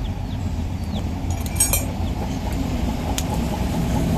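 Light metallic clinks, a quick cluster about one and a half seconds in and a single tick near three seconds, over a steady low rumble in a workshop.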